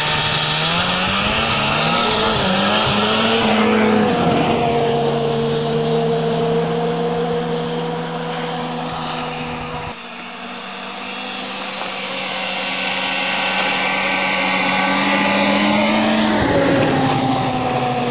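1995 Polaris Indy 500 snowmobile's two-stroke engine pulling a rider on a sled behind it. It revs up at the start and then holds a steady high pitch. After an abrupt cut about halfway through, the engine runs steadily again and drops in pitch near the end.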